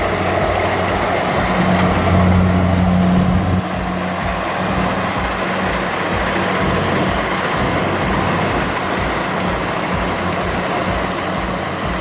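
Kubota DC-70 combine harvester's engine running steadily under load as it cuts and threshes rice, a constant low hum with machinery noise over it. The level drops slightly about three and a half seconds in.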